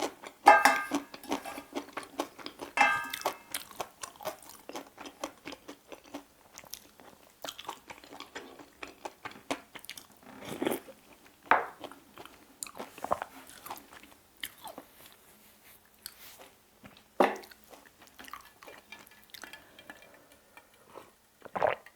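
Close-miked chewing and crunching of a mouthful of bibimbap, with irregular sharp mouth clicks and a few louder bites.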